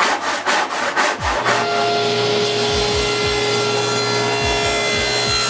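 Handsaw cutting through a maple board in quick strokes, about four a second. About a second and a half in, this gives way to the steady hum of a table saw running.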